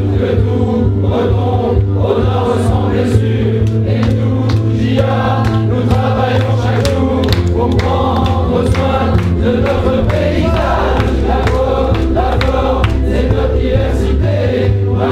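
A group of voices singing a pop song together in chorus over a backing track with a steady bass line and a beat.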